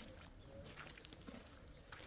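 Near silence: faint outdoor background with a few soft scattered ticks and a faint bird call.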